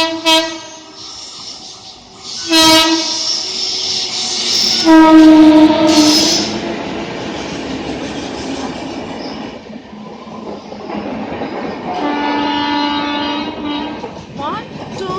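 Horn of an express train passing through a station at speed. It gives a short blast near the start, another a couple of seconds in, a longer and loudest blast about five seconds in, and a final two-second blast near the end. Between the blasts the coaches rumble and clatter past.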